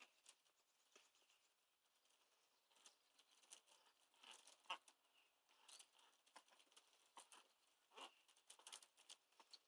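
Faint, scattered clicks and rustles of ducks dabbling and pecking with their bills in gravel.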